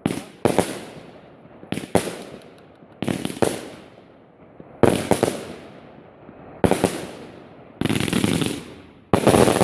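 Fireworks going off: sharp bangs about every second and a half, several in quick pairs, each fading off, then a dense run of crackling near the end.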